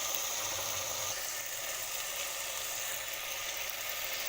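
Chicken pieces frying in hot oil in a pot with freshly added cumin seeds, a steady sizzle.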